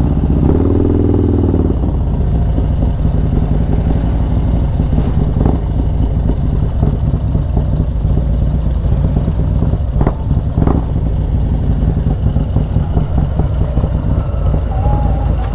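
Harley-Davidson Road Glide motorcycle's big-bore 128-cubic-inch V-twin engine running steadily under way through a 2-into-1 exhaust. There is a brief rise and fall in pitch about a second in.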